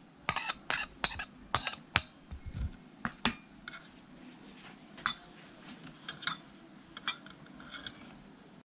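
Metal spoon clinking and scraping against a ceramic plate while mixing chopped jackfruit seeds with chili, onion and salt. Quick taps about three or four a second for the first three seconds, then a few scattered clinks.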